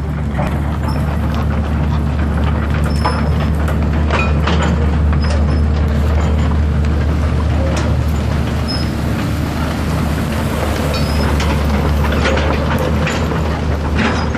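Heavy demolition machine's diesel engine running steadily, with scattered cracks and knocks of a house being torn apart.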